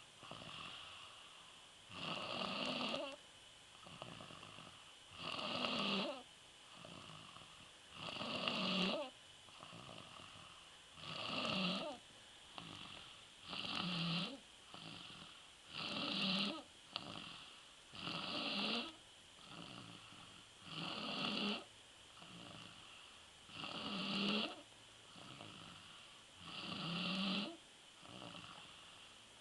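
A sleeping boy snoring in a steady rhythm: about ten snores, one every two and a half to three seconds, with quieter breaths between them.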